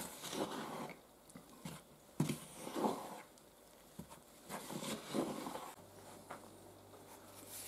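Wooden spoon stirring olive oil into flour in a mixing bowl: a few soft scraping strokes, growing fainter over the last couple of seconds.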